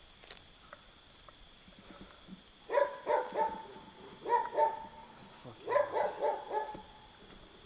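A dog barking in three short runs of several barks each, starting about three seconds in.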